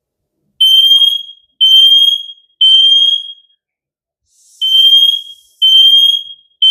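GS562A hardwired smoke alarm sounding on test: loud, high-pitched beeps in groups of three with a pause of about a second between groups, the standard temporal-three alarm pattern.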